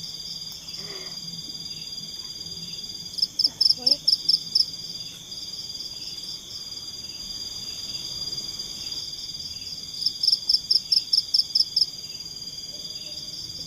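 Steady high-pitched chorus of night insects in tropical forest, with two loud bursts of about eight rapid chirping pulses each, one around three seconds in and one around ten seconds in, from a calling frog or insect.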